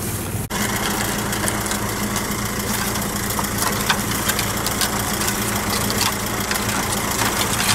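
An engine idling steadily, a low even hum, with scattered light clicks over it.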